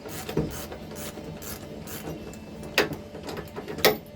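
Socket ratchet clicking in quick repeated strokes, about three a second, as the lower bolt of a Harley-Davidson touring bike's rear shock is undone. It is followed by a couple of sharp metal clinks near the end.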